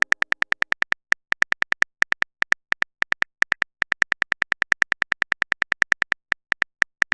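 Smartphone keyboard typing clicks: a rapid, uneven run of short, bright taps, about seven a second, with a few brief gaps as a text message is typed out.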